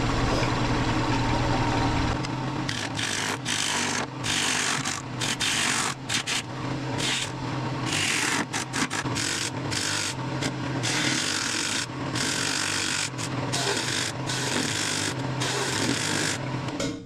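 Wood lathe running with a steady motor hum while a turning tool cuts the outside of a spinning, hard, dry cherry bowl blank. The hissing cutting noise comes and goes in repeated passes of the tool.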